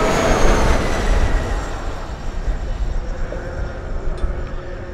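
Electric racing motorcycle passing close at speed: a high motor whine over tyre and wind noise, loudest at the start and fading as it moves away.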